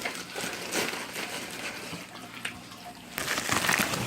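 Aquarium water trickling and splashing over a low hum, with scattered clicks and a louder scratchy noise about three seconds in.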